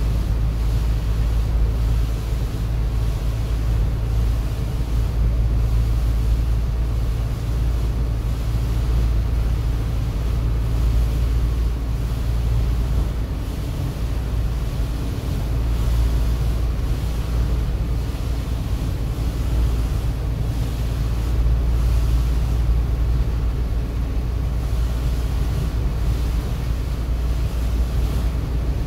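Steady low rumble of a vehicle's engine and drivetrain, heard inside the cabin while driving, with tyres hissing on the rain-wet road.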